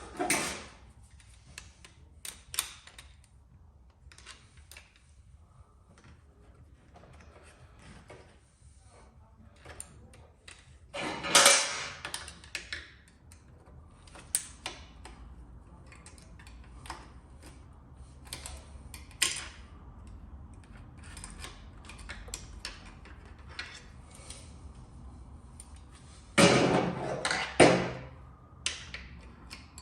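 Scattered clicks, taps and knocks of hand tools and metal motorcycle parts being handled while a clutch cable is worked into place, with a few louder clattering handling noises near the start, in the middle and near the end.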